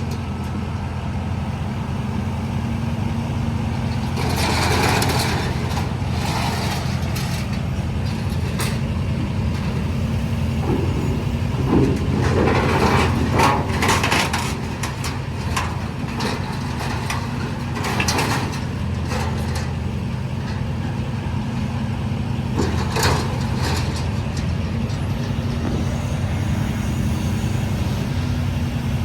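Large engine running steadily at a constant low pitch, with louder noisy clatter and hiss breaking in now and then.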